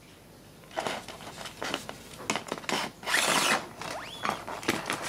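Handling noise as a circuit board is moved and turned over on a bench: a run of irregular clicks, rattles and scrapes, with a louder scrape about three seconds in and a short rising squeak just after.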